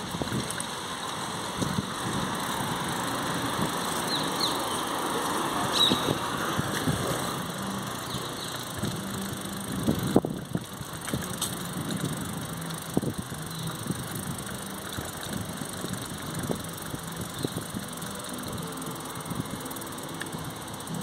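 Bicycle rolling over cobblestones: a steady rumbling noise from the tyres and bike with many small knocks as it jolts over the stones, and a harder knock about halfway through.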